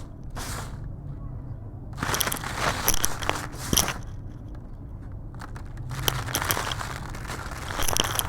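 Crumbly black concrete being crushed and broken apart, giving crisp crunching and crackling with sharp snaps. A short crunch comes at the start, then longer spells of crunching through the middle and again near the end.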